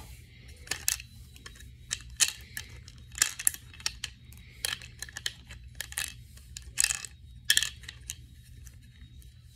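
Small plastic doll accessories clicking and rattling as they are handled, about a dozen irregular light clicks, over a steady low hum.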